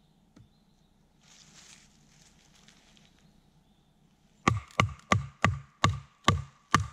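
TOPS Bushcrafter Kukri 7.0 machete splitting wood: a brief rustle, then from about four and a half seconds in a quick run of sharp knocks, about three a second, with a ringing tone carrying between them.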